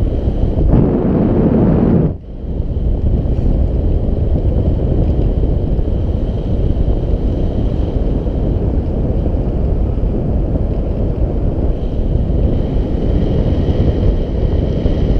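Wind noise from the airflow of paragliding flight buffeting the GoPro Hero 4 Black's microphone: a loud, steady rumble. It is louder for the first two seconds, then drops off suddenly and settles back to a steady level.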